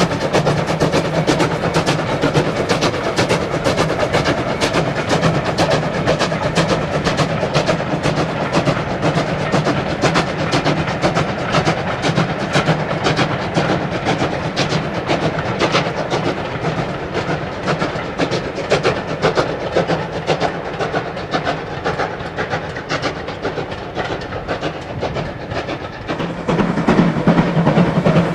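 Steam locomotive, an 0-8-0 freight engine, passing with a train of coaches: the beat of its exhaust and the clatter of wheels over rail joints. The sound fades as the train draws away, then is suddenly loud again near the end.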